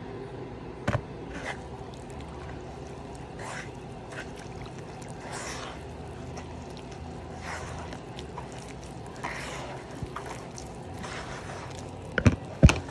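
A hand squishing and kneading wet masa dough in a bowl, with irregular wet squelching as the water is worked into the flour. Two sharp knocks near the end are the loudest sounds.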